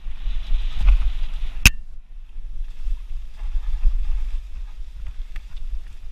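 Mountain bike ridden along a dry, leaf-strewn dirt trail: wind on the helmet-mounted microphone makes a low, uneven rumble over the rolling noise of the tyres and bike, with one sharp click a little under two seconds in.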